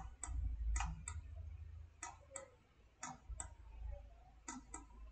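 Computer mouse buttons clicking in quick pairs, press and release, about once a second, over a steady low rumble.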